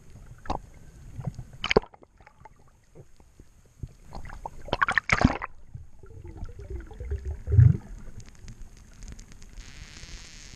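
Seawater splashing and sloshing close to the camera, irregular, with louder splashes about two and five seconds in.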